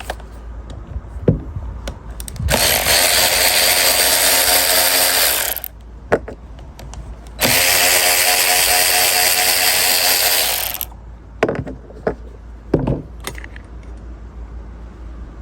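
A handheld power tool runs in two steady bursts of about three seconds each, backing out the fasteners of the camshaft position sensor on a 1.8T cylinder head. Sharp clicks of tool handling come before, between and after the bursts.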